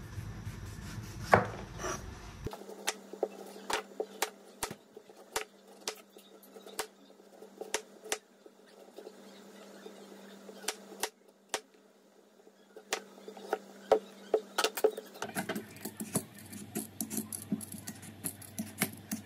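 Chef's knife shaving the skin off a butternut squash on a wooden chopping board: irregular sharp knocks and clicks of the blade and squash against the board, with scraping cuts between them, coming faster near the end.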